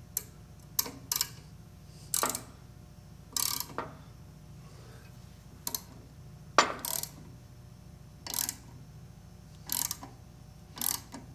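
Ratchet wrench clicking in short spells, about once a second, as it turns the forcing screw of a three-jaw gear puller on a rusted, seized saw arbor.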